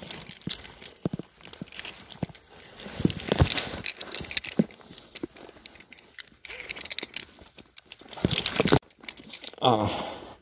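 Climbing gear being handled on rock: a run of small clicks, knocks and rustles from rope and a screwgate carabiner, with louder rustling twice. A short 'ah' from the climber near the end.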